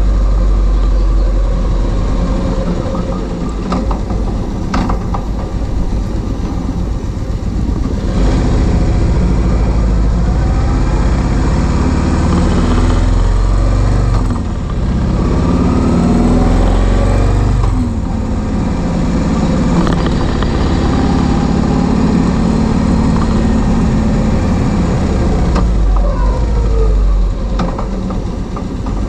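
Kawasaki VN2000 cruiser's big V-twin engine running under way. The engine note rises and falls a few times around the middle of the stretch and again near the end.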